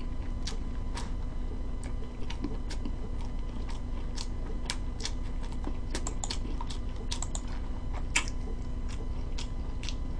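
Close-miked chewing of a chicken and egg burrito: small irregular mouth clicks, several a second, over a steady low hum.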